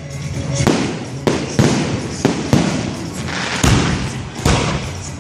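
Street fireworks going off, about eight sharp bangs at irregular intervals, each trailing a short echo.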